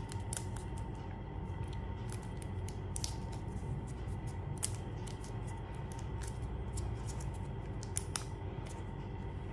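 Fingernails picking and prying at a clear plastic protective cover on a smartwatch, giving scattered small clicks and scratches at irregular moments over a steady low background hum.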